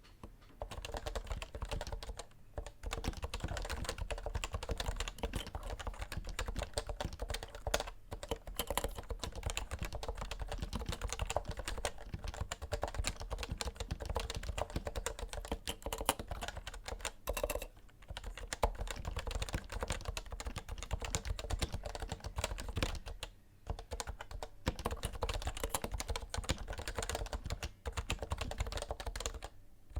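Continuous typing on a Realforce R2 TKL keyboard with 55 g Topre switches: a fast, steady stream of keystrokes broken by a few short pauses.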